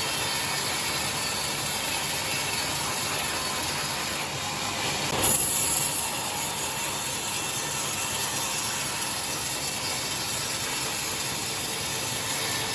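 Sawmill machinery running steadily while splitting timber into 2 cm boards, with a brief louder burst about five seconds in.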